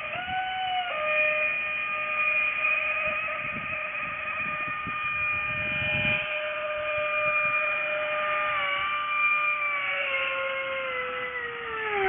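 Small electric motor of a radio-controlled bottle boat whining as it drives the boat across the water. The whine is a little higher for about the first second, holds a steady pitch, then sags lower near the end as the throttle eases.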